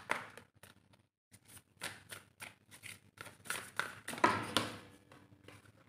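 A tarot deck being shuffled by hand: cards sliding and slapping against each other in a run of quick sharp clicks and rustles, with a brief pause about a second in and a louder flurry a little after four seconds.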